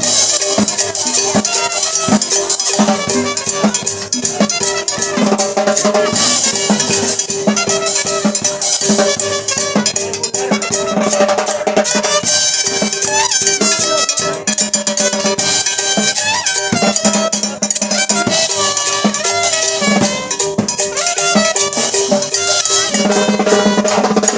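Live band playing upbeat dance music, with drums and percussion keeping a steady beat under sustained melodic notes.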